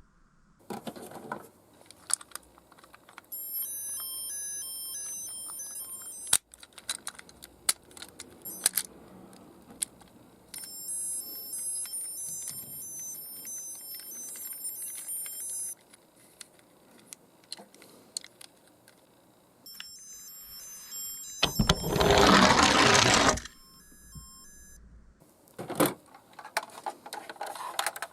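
Small toy cars clicking and rattling, with stretches of high electronic beeping tones that step up and down, and a loud rattling rush lasting about two seconds near 22 seconds in.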